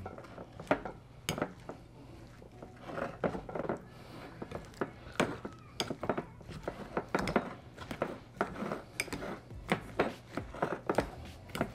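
Metal potato masher mashing boiled potatoes in a glass bowl: irregular clinks and knocks of metal on glass, a few a second, with softer mashing between them.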